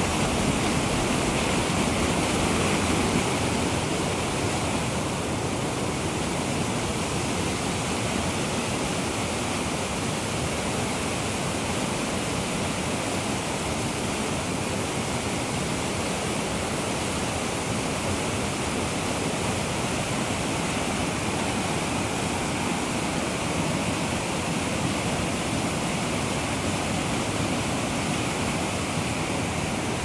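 A mountain waterfall and its torrent pouring over rocks: a steady rushing of water, a little louder for the first few seconds.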